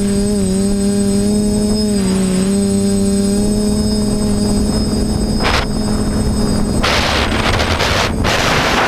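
Quadcopter motors and propellers humming at a steady pitch, dipping slightly now and then with throttle. About seven seconds in, gusting wind noise on the craft's microphone takes over.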